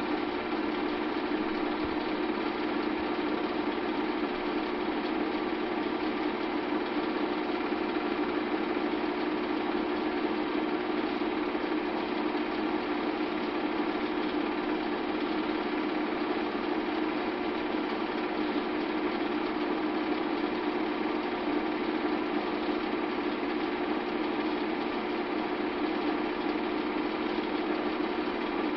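Bell & Howell regular 8mm film projector running steadily as it shows a film, its motor, fan and film-advance mechanism making a constant even mechanical hum.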